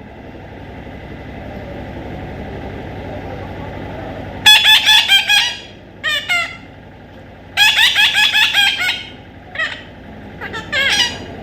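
Baby parrot giving bursts of shrill, rapid, repeated calls, several in quick succession, with short pauses between the bursts.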